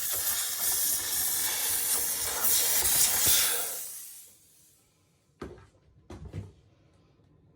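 Dupray steam cleaner jetting steam with a steady hiss that fades out and stops about four seconds in; then a few light knocks.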